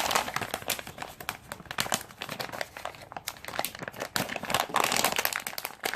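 Plastic packaging crinkling and rustling continuously as USB-C cables are handled and unwrapped, with irregular crackles.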